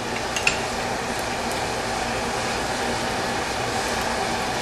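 A couple of short metal clinks about half a second in as the steel tong half is handled and repositioned in the bench vise, over a steady rushing noise.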